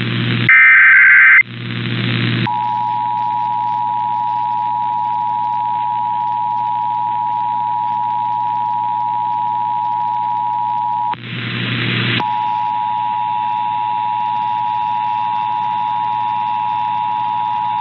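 Emergency Alert System transmission: a second-long burst of high digital data tones near the start, then the steady two-tone attention signal over radio hiss and a low hum. The tone breaks off about 11 seconds in for a second of hiss, then resumes.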